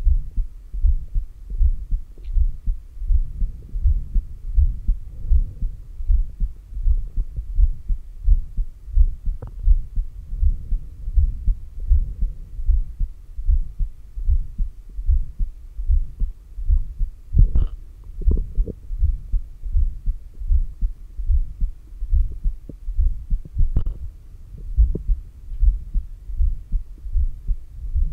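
Human heartbeat heard through a stethoscope on the chest at the heart's apex: a steady, even run of low lub-dub thumps. A few short, faint noises rise above it, around a third of the way in, at about 17 to 18 seconds, and near 24 seconds.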